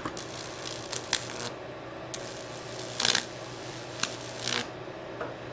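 Wood crackling and sizzling in irregular bursts as high-voltage current from a 4,000-volt neon sign transformer burns a branching Lichtenberg pattern into it, over a steady low electrical hum.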